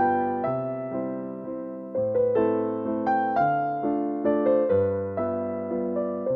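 Background piano music: a slow melody of struck notes, each dying away, over lower bass notes.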